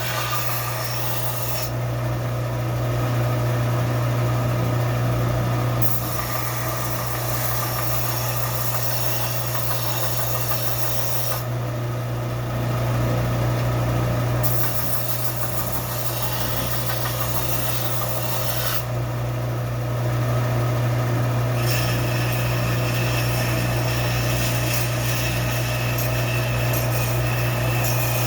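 Belt sander running with a steady motor hum while a rusty steel adze blade is ground against the belt to clean and sharpen it. The grinding noise changes several times as the blade is shifted.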